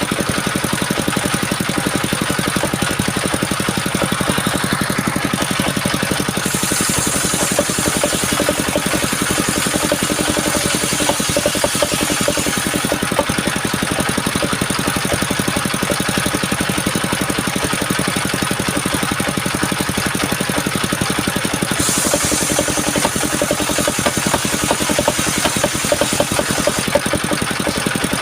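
Engine driving a mobile circular-saw sawmill, running steadily with a fast even beat. A brighter high hiss joins it about a quarter of the way in and again near three-quarters of the way through.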